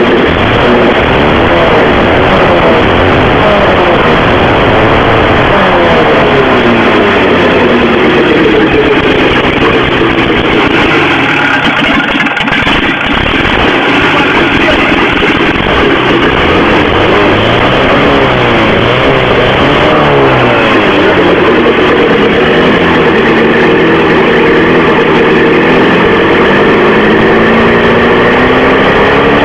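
Loud VAZ-2106 four-cylinder car engine running in a motorcycle, its note rising and falling again and again as the revs go up and down.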